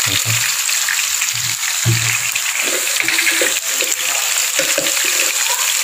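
Eel pieces sizzling as they stir-fry in a steel pot, a steady hiss, with the eel nearly cooked.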